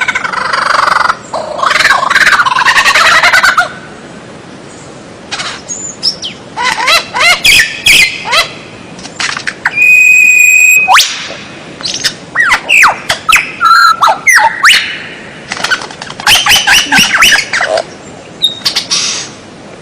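White-rumped shama (murai batu) singing a varied, loud song of fast chattering phrases, rising and falling whistles and harsh squawky notes, with one steady whistled note held about a second midway.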